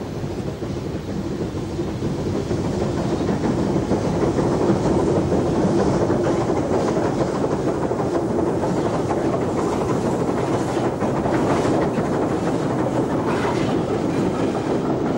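Rebuilt Merchant Navy class Pacific steam locomotive and its coaches running past, the noise growing louder over the first few seconds. Through the second half the passing coaches' wheels click rhythmically over the rail joints.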